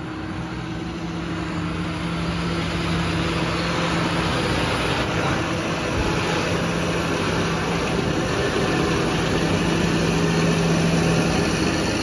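Diesel engine of a John Deere front-loader tractor running steadily as the tractor drives in, growing louder over the first few seconds as it comes close, then holding level.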